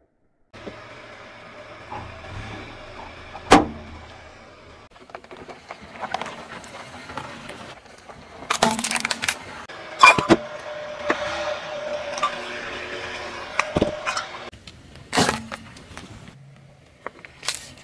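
A car tyre rolling slowly over small hard objects on asphalt: a low running noise broken by about half a dozen loud, sharp cracks and snaps as brittle things such as a plastic abacus and a seashell break under the wheel.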